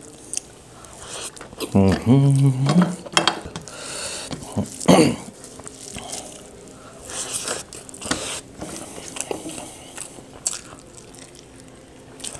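Fingers mixing rice and mutton gravy on a steel plate, with scattered small clicks and soft wet handling sounds, and eating noises. A brief wordless voice sound about two seconds in and again near five seconds.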